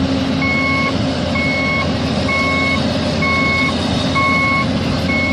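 Reversing alarm beeping about once a second, each beep about half a second long, over steady heavy-vehicle engine noise.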